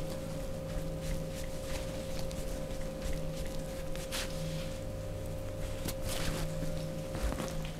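Hands rubbing and brushing over clothing and skin during a chair massage, with soft friction swishes, the strongest about four and six seconds in, over a steady faint hum.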